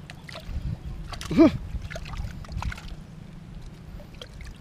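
Shallow water sloshing and splashing with light rustling and clicks as tilapia are picked out of a wet fishing net by hand. About a second and a half in, a brief voice sound that rises and falls in pitch.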